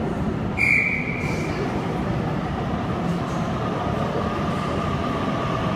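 Sydney Trains Waratah (A-set) electric train arriving at an underground platform: a steady rumble with a rising motor whine that sets in about two seconds in. A short high tone sounds about a second in.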